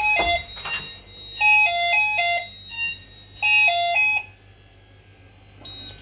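Electronic fire alarm sounder giving two bursts of a stepped two-tone pattern, high and low notes alternating quickly for about a second each, with a brief snatch of it at the very start. A short high beep sounds near the end.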